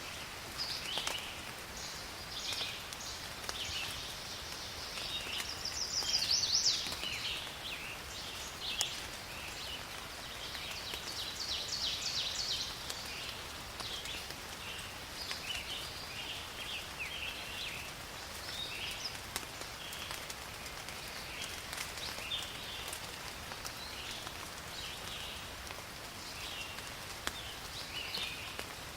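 Rain falling in a forest, with scattered drops ticking, under a continual chorus of high, quick chirping and trilling animal calls that swells briefly about six seconds in.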